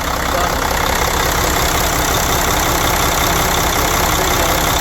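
Mercedes OM460LA inline-six diesel engine running steadily at idle, cold.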